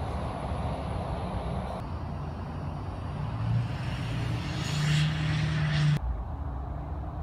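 Outdoor traffic noise. A motor vehicle's engine drone rises in pitch from about three seconds in, with a hiss on top, and cuts off abruptly about six seconds in. A low rumble is left after it.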